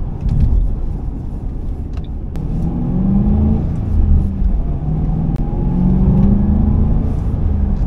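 2005 Ford Mustang GT's 4.6-litre V8 purring, heard from inside the cabin while driving. The revs climb, dip about halfway through at a gear change, and climb again.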